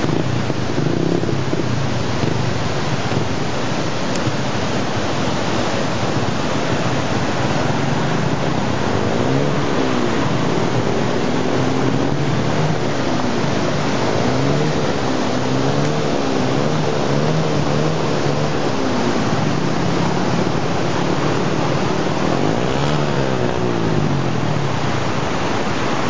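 Muddy river water rushing over rocks, a steady loud rush throughout. From about eight seconds in, a small motorcycle engine joins, its pitch rising and falling again and again as it revs.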